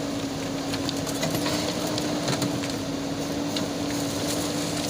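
Backhoe loader's diesel engine running steadily with a constant hum, with a few faint clicks over it.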